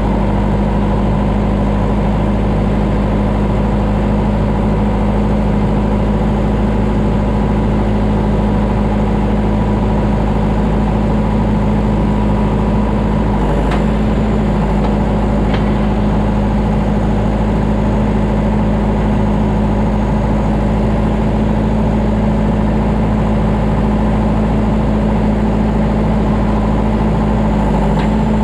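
Tractor engine running at steady revs close by, with a couple of faint clicks about halfway through.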